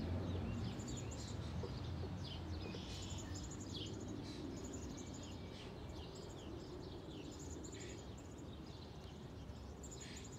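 Small birds chirping, with many short rising and falling chirps scattered throughout. Under them is a low rumble that fades away over the first two or three seconds.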